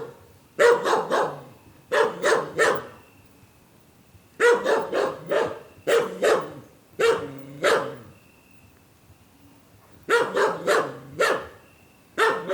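A dog barking in quick runs of two to four barks, with short pauses between the runs.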